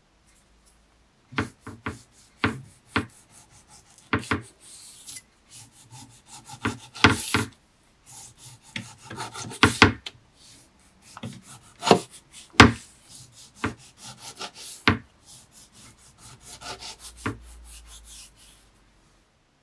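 Kitchen knife slicing a tomato into rounds on a wooden board: soft rubbing strokes of the blade through the fruit, broken by sharp taps at irregular intervals as the blade reaches the board.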